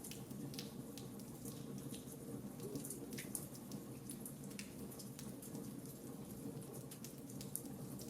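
Fire crackling in a fireplace: scattered sharp pops and snaps, about one or two a second, over a steady low background of the burning fire.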